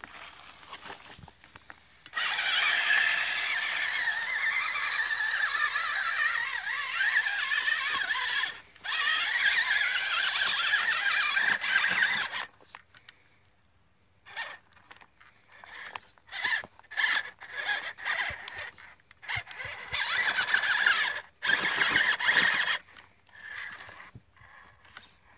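Electric motor and gearbox of an ECX Barrage Gen 2 RC rock crawler whining under throttle: a long run of about six seconds starting about two seconds in, a second run of about three seconds, a brief pause, then a string of short throttle blips.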